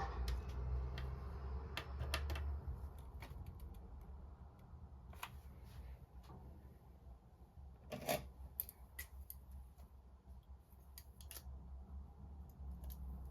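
Scattered small clicks and taps of pen and paper during note taking, with a louder cluster about eight seconds in, over a steady low rumble of background traffic ambience.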